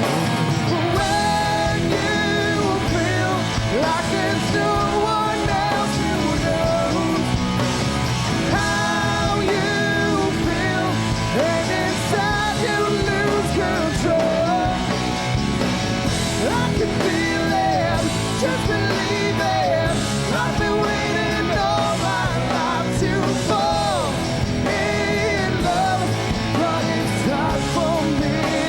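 Rock band playing a song, with guitars under a sung vocal line.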